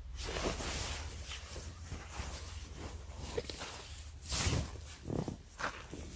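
Rustling and shuffling of tent fabric and bedding as a person climbs into a small one-person backpacking tent: several short rustles, the loudest a little past four seconds in.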